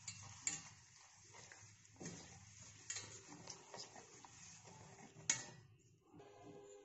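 Wire whisk stirring oil, sugar and cocoa powder in a steel bowl: faint, irregular clinks and scrapes of metal on metal, with one sharper knock about five seconds in.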